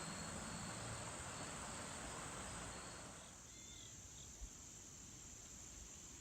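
Crickets chirring steadily in a late-summer field, with a broader rustling noise over them for about the first three seconds and a small low thump a little after that.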